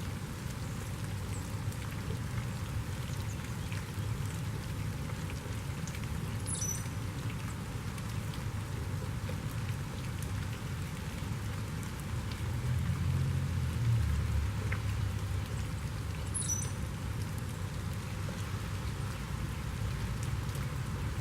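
Steady rain pattering, with scattered drip ticks and a low rumble underneath. A bird gives a short high call, falling in pitch, twice, about ten seconds apart.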